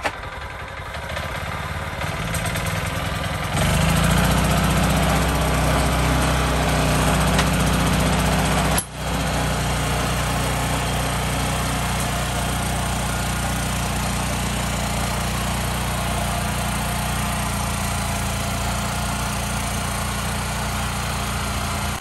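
Iseki mini cultivator's small engine running after being pull-started; about three and a half seconds in it revs up louder and then runs steadily under load while tilling. It is a test run after a clogged air cleaner, the cause of its poor revving and lack of pulling power, was dealt with.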